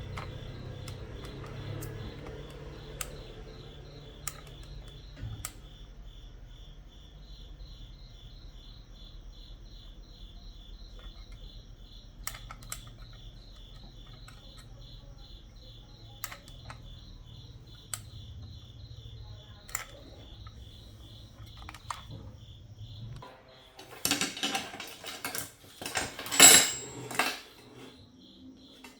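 Small hard objects being handled on a work surface: scattered clicks, then a loud burst of metallic clattering near the end. A low hum stops suddenly about two-thirds of the way in, and an insect trills steadily throughout.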